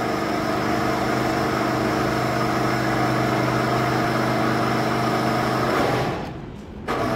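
Engine of a crane carrying a scrap-lifting electromagnet, running steadily with an even low hum. It cuts off about six seconds in.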